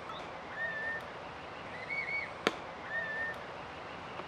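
A songbird repeating a short two-part song twice: a wavering whistled phrase, then a flat held whistle. About two and a half seconds in comes a single sharp smack, the loudest sound, over a steady outdoor background.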